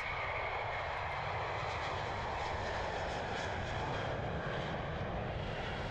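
Twin-engine jet airliner's turbofan engines at take-off power as the plane lifts off: a steady rush of noise with a faint high whine.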